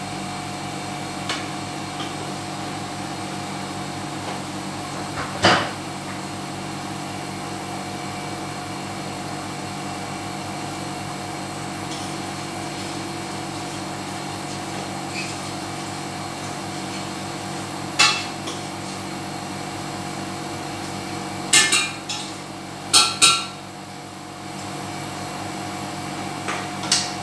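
Steady hum of a kitchen cooker-hood fan, broken a few times by sharp knocks of a utensil against the frying pan as the prawns are turned, loudest in a quick cluster about three-quarters of the way through.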